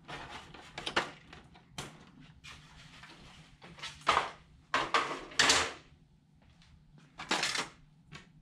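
Hard plastic printer cover being lifted off an HP LaserJet 4250 and handled: a handful of short plastic scrapes and clatters, the loudest about halfway through.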